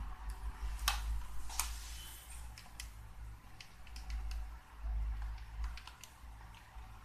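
Two sharp taps of a marker on a whiteboard about a second in, then a run of light, irregular clicks of handheld calculator keys being pressed as a sum is worked out.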